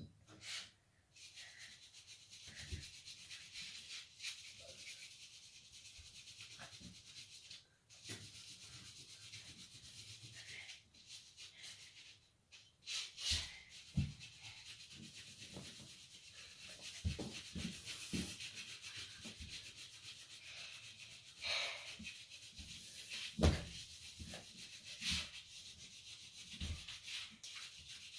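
Scattered soft thumps and scuffs of bare hands and feet on a tile floor during gymnastics bridges and walkovers, over a steady hiss.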